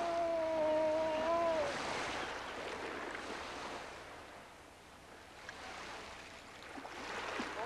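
A man's imitation moose call: a long nasal held note that sags and drops in pitch as it ends, followed by the wash of surf. Near the end another call begins, rising into a held note.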